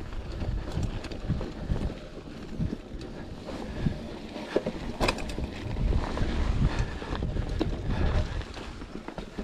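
Wind buffeting the microphone over the rumble of a Specialized Pitch mountain bike's tyres rolling along a rocky dirt trail, with irregular knocks and rattles from the bike over the rough ground and one sharp clack about five seconds in.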